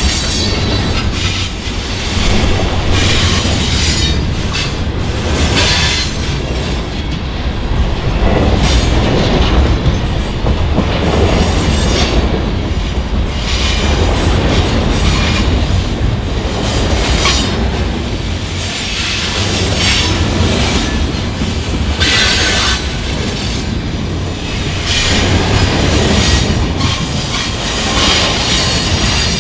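Canadian National freight train's cars rolling past: steel wheels rumbling and clattering over the rails, with thin squeals now and then.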